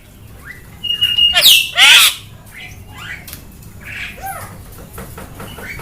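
Javan myna giving harsh, rising squawks. A brief steady whistle comes just before the loudest pair of calls, about one and a half seconds in, and softer short calls follow.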